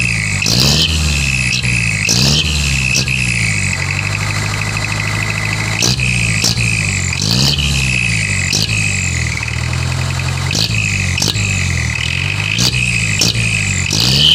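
Truck engine revved in repeated short blips through a 'cung'-style straight-through exhaust, its pitch rising and falling again and again. A steady high whine runs under it.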